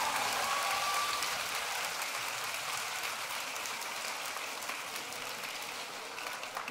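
Large concert audience applauding after a song, a dense, steady clatter of many hands that slowly thins out.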